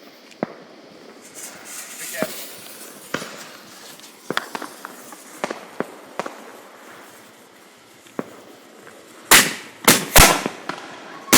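Consumer fireworks going off: scattered sharp pops and cracks through most of the stretch, then a quick run of much louder bangs near the end, leading into dense crackling.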